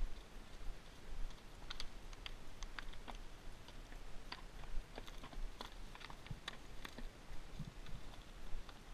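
Irregular light clicks and knocks from a walking saddle horse and its tack, hooves on rocky ground, over a low rumble.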